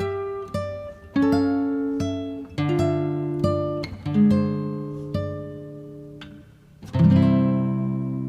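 Slow solo acoustic guitar music: single plucked notes, one after another, each ringing and fading. About seven seconds in, a fuller chord is struck and left to ring out.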